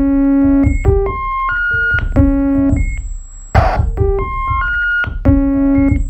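Electronic synthesizer tones from home-built breadboard circuits: a looping sequence of short pitched notes stepping up and down, over low pulses, with a brief burst of hiss about three and a half seconds in.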